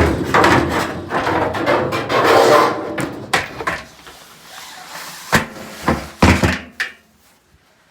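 Hands working on a clothes dryer: parts scraping and rattling for about three seconds, then several sharp knocks, then fairly quiet near the end.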